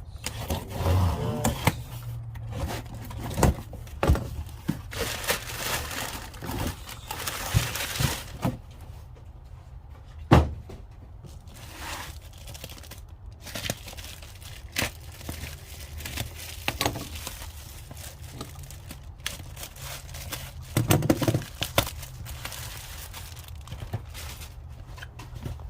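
Packaging being handled and opened: crinkling and tearing, with scattered knocks and thunks. A stretch of rustling comes about a quarter of the way in, and one sharp knock is the loudest sound.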